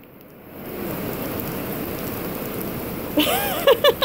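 Heavy rain falling steadily on pavement and grass, a constant hiss that swells in during the first second. About three seconds in, a young child starts squealing excitedly.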